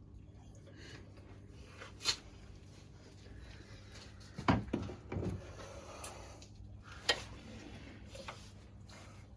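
A few short clanks and knocks of metal parts and tools being handled on a stripped engine, the loudest pair about four and a half seconds in, over a low steady hum.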